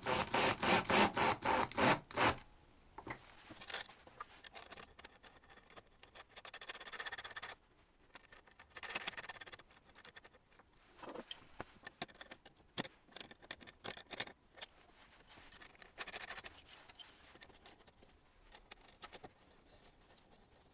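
A small screw being driven into plywood with a driver bit: a rapid rattling run of clicks for about two seconds. After that, quieter scattered clicks and scrapes of metal parts being handled.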